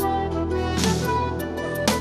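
Irish slip jig music playing for a solo dance, with two sharp knocks of the dancer's feet landing on the stage, about a second in and near the end.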